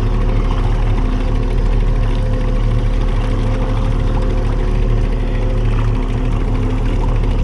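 Boat's outboard motor running steadily at slow trolling speed, a constant low hum.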